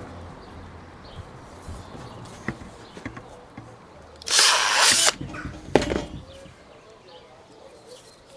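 Power drill spinning a wire stripper and twister bit in one short burst of under a second, about halfway through, stripping the insulation off two wires and twisting them together. Small handling clicks come before it and a sharper knock follows.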